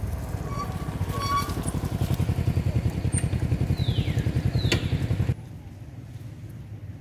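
Motorcycle engine running nearby with a fast, even low throbbing, cutting off abruptly about five seconds in. A few short high chirps and a brief falling squeak sound over it.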